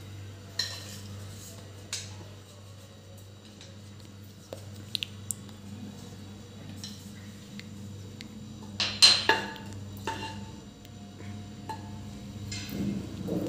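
Scattered knocks and clinks of a wooden spatula and cookware against a nonstick kadhai, with a loud clatter about nine seconds in, over a steady low hum.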